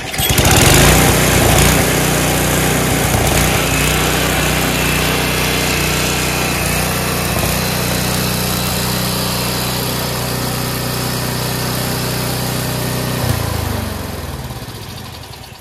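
Small gas engine of a Craftsman Trac-Plus track-drive snowblower running steadily as the machine is driven on its tracks, then shut off about thirteen seconds in and winding down to a stop.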